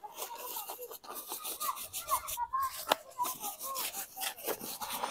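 Rustling and scraping of a tent's tarp groundsheet being rolled up by hand on stone paving, with one sharp click about three seconds in.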